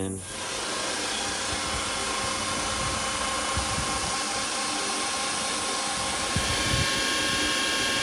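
Portable refrigerant recovery machine starting up just after it is plugged in and then running steadily, an even motor whir with faint steady tones. It is drawing the refrigerant out of the truck's AC system through the low-side hose.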